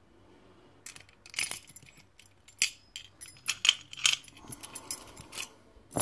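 A bunch of keys on a ring jangling and clinking against a steel Master Lock shutter padlock as the key is worked out of the lock and the lock is handled: a quick run of sharp metallic clicks starting about a second in, with a last click near the end.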